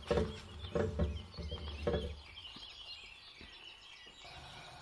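A hand pats a paratha down on a hot iron tawa, a few soft thumps in the first two seconds, with birds chirping in the background. About four seconds in, a steady hiss rises: the gas burner turned up to full flame.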